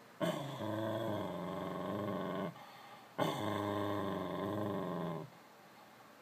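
A dog growling in two long, low rumbles of about two seconds each, with a short pause between them. It is growling at the glass door, at what the owner takes to be its own reflection.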